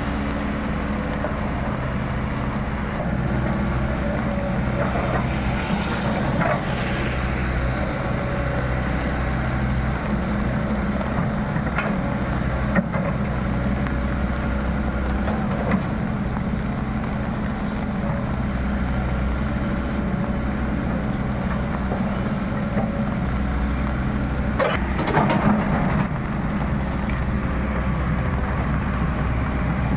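Diesel excavator engine running steadily under load, with a few sharp knocks and a louder burst of noise about 25 seconds in.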